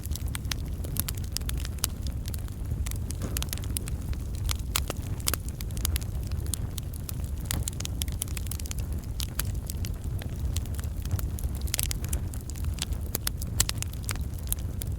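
Wood campfire burning steadily: dense, irregular crackling and snapping of logs over a low rumble of the flames.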